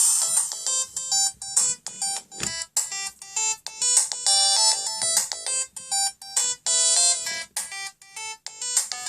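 Siemens SL55 mobile phone ringtone playing: a quick electronic melody of many short, clipped notes, beginning abruptly.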